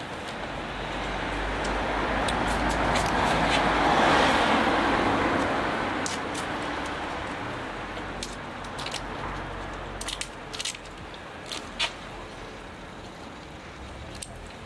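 A car passing by on the street, its tyre and engine noise swelling to a peak about four seconds in and then fading away. A few sharp clicks follow near the end.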